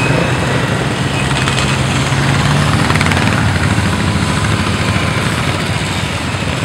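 A long procession of motorcycles passing one after another, their engines blending into a loud, steady drone with a low pulsing throb.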